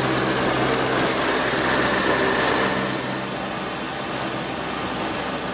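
Daikin chiller's eight-cylinder reciprocating compressor running with a steady mechanical hum. A faint high whine shows for about a second in the first half.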